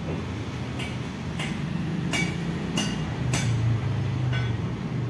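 Half a dozen light, sharp clicks and clinks at irregular intervals, from small tools or meter probes being handled on the workbench, over a steady low hum.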